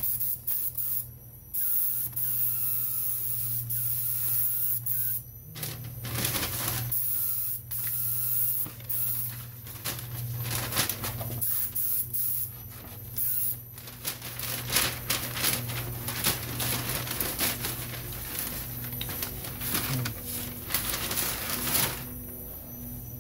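Gravity-feed touch-up spray gun at about 25 psi hissing in repeated passes of varying length, from about five seconds in, as a first coat of candy paint goes on. A steady low hum runs underneath.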